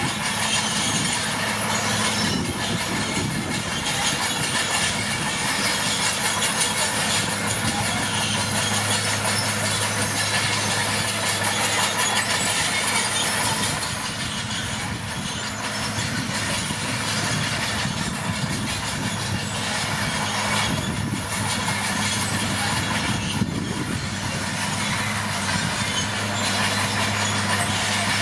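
Komatsu D41P crawler bulldozer working: its diesel engine runs steadily under a continuous clanking of the steel tracks, easing off slightly partway through before picking up again.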